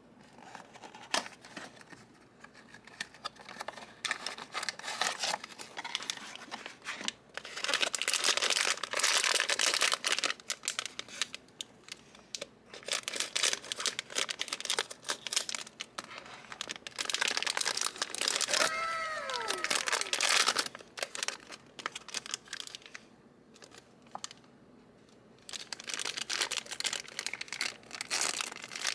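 Hands crinkling and tearing blind-box packaging: plastic and foil wrappers rustled and ripped open in irregular bursts, with a short squeak whose pitch falls, about two-thirds of the way through.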